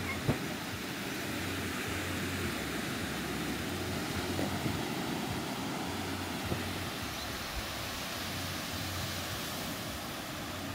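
Surf breaking on a sandy beach, a steady wash of noise, with gusts of wind buffeting the microphone in uneven low rumbles and a few light handling knocks.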